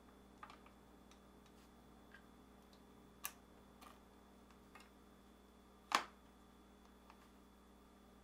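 A few sharp, isolated clicks and taps of plastic refrigerator mullion hinge parts being handled and slid into the mullion's retaining slot, the loudest about six seconds in; near silence between them.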